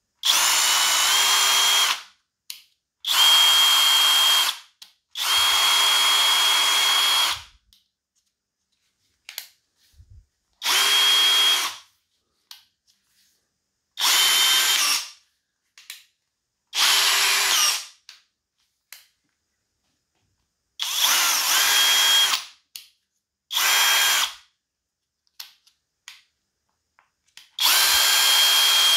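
Parkside PBSPA 12 A1 12 V cordless drill driver motor running in short bursts, about nine in all, each lasting one to two seconds with pauses between. The whine steps up in pitch shortly after the start of several runs, and there are faint clicks in the gaps.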